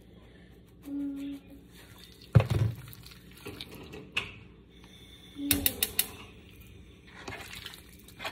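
Hands working seasoning into raw chicken breasts, with wet squishing and slapping of the meat. There is a sharp thump about two and a half seconds in, and a quick run of clicks near the two-thirds mark.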